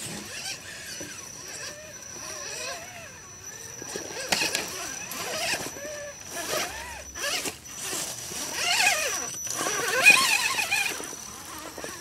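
Electric motor and geared drivetrain of a radio-controlled scale rock crawler whining, the pitch wavering up and down with the throttle as it climbs over boulders, with several sharp knocks of tyres and chassis on rock.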